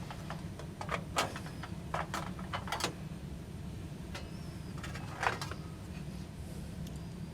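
State gas water heater's main burner running with a steady low rumble, just lit. Several sharp clicks and knocks of handling break in over the first three seconds and once more about five seconds in.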